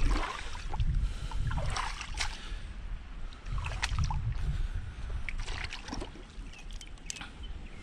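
Footsteps wading through shallow tide-pool water among rocks, with splashing and sloshing coming in swells every second or two and a few sharp clicks between them.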